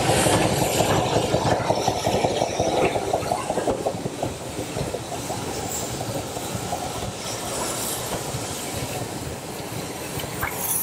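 Steam tank locomotive and its train of carriages running past, wheels clacking rapidly on the rails. Loudest for the first few seconds as the engine goes by, then softer as the carriages roll past.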